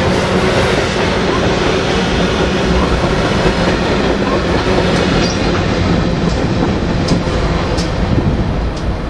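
GE ES44DC diesel locomotives, running as distributed power at the rear of a double-stack container freight train, pass close by with their engines running over steady rolling wheel-on-rail noise. A few sharp clicks from the wheels come in the second half, and the sound eases slightly near the end as the last unit goes by.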